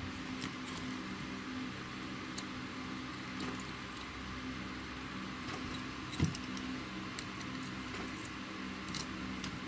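Faint small clicks and scrapes of a hand tool picking at a printed circuit board, with one soft knock about six seconds in, over a steady low hum.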